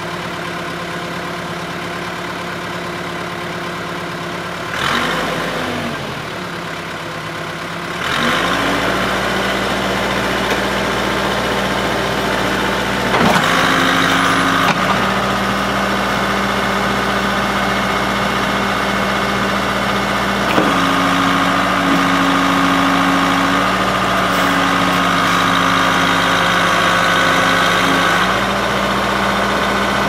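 Case 580C backhoe-loader's diesel engine running. It dips briefly about five seconds in, is throttled up about eight seconds in, and shifts in pitch a few more times as the hydraulics work the backhoe boom and stabilizer legs.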